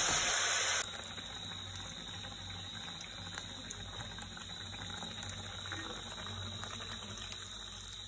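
Sel roti batter deep-frying in hot oil in a kadai: a loud steady sizzle that cuts off suddenly about a second in, then a quieter sizzle with scattered small crackles over a low hum.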